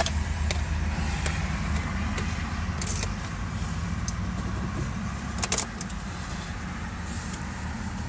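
Volkswagen Polo sedan engine running steadily while cold, with the knock typical of its cold start. A few scattered sharp clicks sound over the hum.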